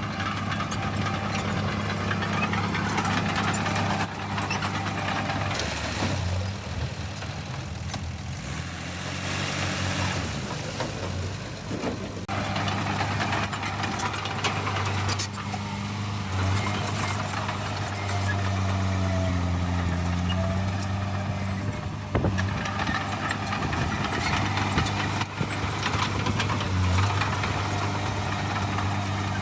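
Heavy diesel engines of earthmoving machinery, dump trucks and a bulldozer, running steadily and changing speed now and then, with a few sharp clanks.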